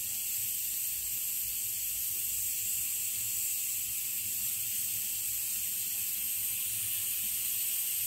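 Steady hiss of steam escaping at the weighted vent of a 5-litre aluminium pressure cooker on a gas burner, as pressure builds toward its first whistle.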